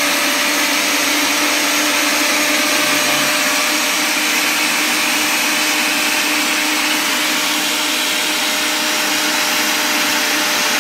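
Mixer-grinder's universal motor running at full speed under an electronic test load of about 700 watts: a steady whine over a dense rush of brush and air noise, holding an even pitch as the load is raised.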